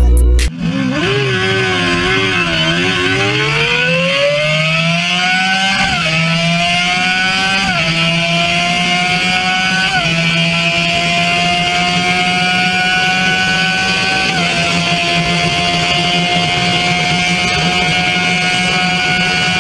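Suzuki GSX-R1000's inline-four engine accelerating hard, heard from the rider's seat. The revs climb and drop at upshifts about six, eight, ten and fourteen seconds in, then hold high and nearly steady at speed over wind rush.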